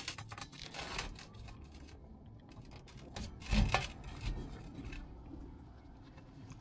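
Tape being wrapped around a boiler flue pipe by gloved hands: irregular crinkling, rubbing and small clicks as the tape is pressed onto the pipe. There is a dull knock against the pipe about three and a half seconds in.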